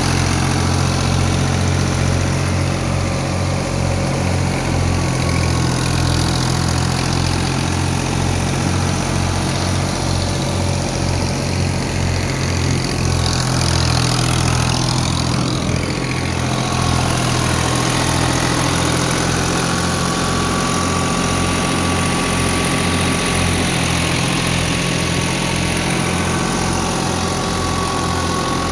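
Diesel engine of a New Holland Ghazi 65 HP tractor running steadily with a regular low pulsing, driving a wheat thresher.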